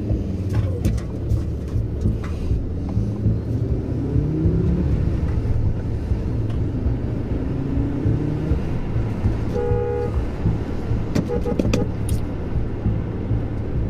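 Car engine and road rumble heard from inside the cabin, the engine note rising as the car accelerates after a scooter. A short horn toot sounds about ten seconds in.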